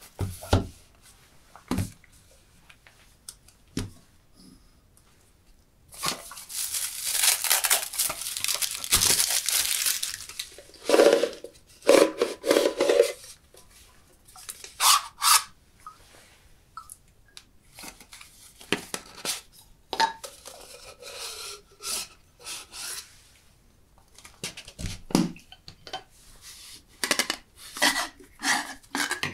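Perfume packaging being unwrapped and handled: cellophane shrink-wrap crinkles and tears off a metal tin for several seconds. This is followed by scattered sharp taps and clicks as the metal tin, its lid and a cardboard tube are handled.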